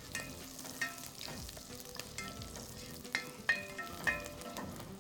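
Diced onion sizzling in hot fat in a pot while a spoon stirs it, with scattered scrapes and clicks against the pot. The onion is being fried until golden.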